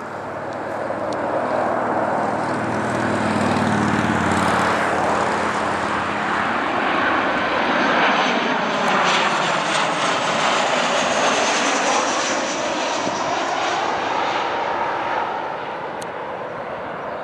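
Boeing 737-800 jet airliner on final approach, its CFM56-7B turbofan engines passing close by: a steady jet roar that builds over the first couple of seconds, loudest about eight seconds in, with a sweeping whoosh as it goes over and away.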